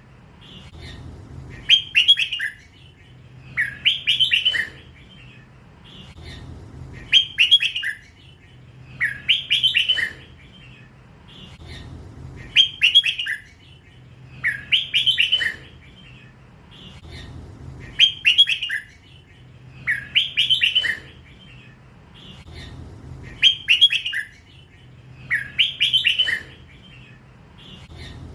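Young crossbred red-whiskered bulbul, still in its first feathers, singing the drawn-out 'lak wai' song, the same short warbled phrase repeated about every two and a half seconds.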